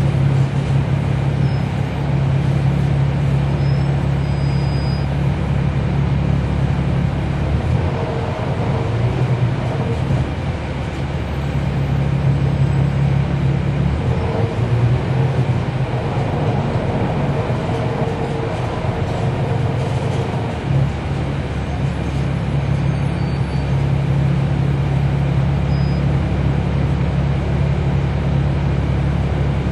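Cummins ISL9 inline-six diesel engine of a 2012 NABI 40-SFW transit bus running, a steady low drone. The engine note shifts for a few seconds about eight seconds in and again from about fourteen to twenty seconds in, with a higher tone over the drone.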